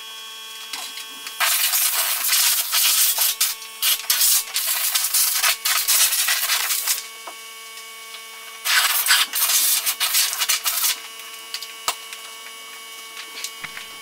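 Compressed air blasting from an air hose into a refrigerator's condenser coil underneath, in two long bursts, the first about five seconds and the second about two, over a steady hum.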